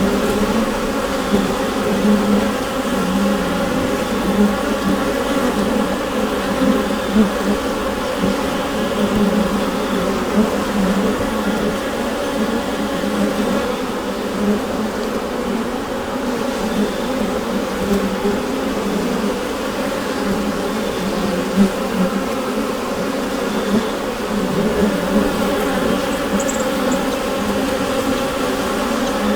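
A honeybee colony buzzing inside the hive: a dense, steady buzz of many bees at once, with small swells in loudness.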